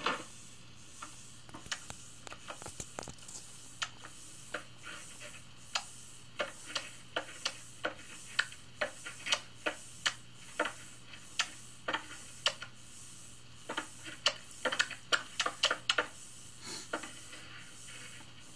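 Stapler snapping shut again and again, sharp single clicks at uneven intervals that bunch into a quick run a few seconds before the end, over a faint steady hum, heard through a television speaker.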